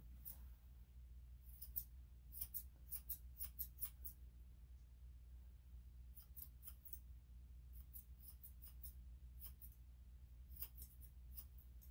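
Grooming scissors snipping through a long-haired Chihuahua's coat. Faint, quick runs of snips come in several bursts with short pauses between them.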